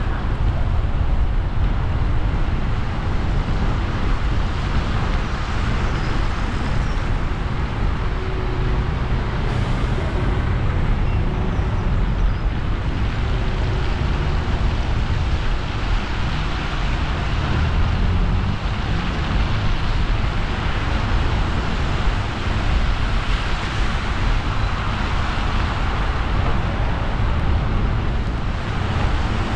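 Car driving on wet roads in the rain: a steady hiss of tyres on wet tarmac over a low rumble of road and engine noise, the hiss swelling a few times.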